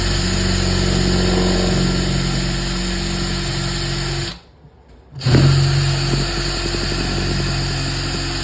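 Hart 20V cordless hammer drill running on its high-speed setting (2) in drill mode. The motor runs steadily for about four seconds, stops for about a second, then starts again and keeps running. It struggles; the owner finds it was set to reverse.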